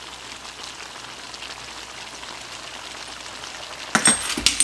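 Pork and vegetable stir fry in teriyaki sauce sizzling steadily in a cast iron wok, a fine, even crackle. Near the end, a few loud sharp clatters.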